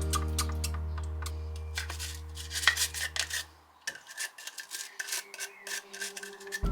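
Hand scrubbing and scraping during cleaning: a series of short, irregular rubbing strokes, one louder scrape in the middle. Background music fades out a little before halfway.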